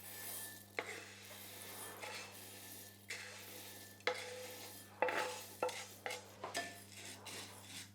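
A spoon scraping and stirring dry-roasted coriander seeds in a pan as they are tipped into a bowl. It is a series of short, irregular scrapes and light clinks over a faint rustle of seeds.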